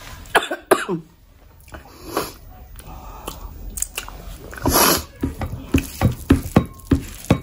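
Close-miked wet chewing and lip smacking of a mouthful of rice and curry: irregular sharp smacks and clicks, coming thick and fast in the last couple of seconds.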